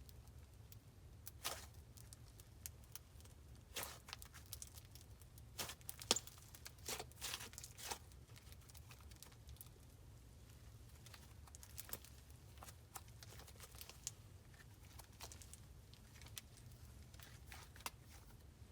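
Slime being handled and pressed, giving quiet irregular crackles and sticky pops, in clusters about four to eight seconds in and again around twelve seconds, over a low steady hum.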